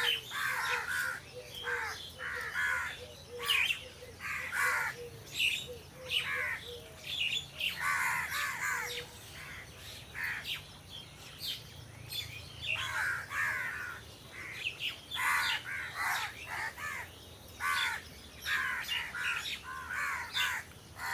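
Several crows cawing repeatedly, their harsh calls coming in clusters and overlapping.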